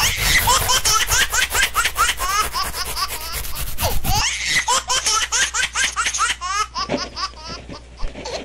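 Small children laughing: a long run of quick, repeated giggles.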